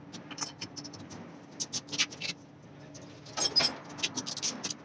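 Scattered light clicks, scrapes and small metallic clinks of bolts and parts being handled while a water pump housing is fitted to an engine block, with a faint steady hum underneath. Two louder clinks stand out about two seconds and three and a half seconds in, the second with a brief ring.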